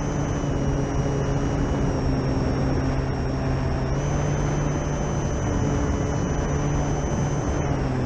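Durafly Tundra RC plane's brushless electric motor and propeller whining in flight over a steady rushing noise. The pitch steps down twice early on, rises about four seconds in, and drops again near the end as the throttle changes.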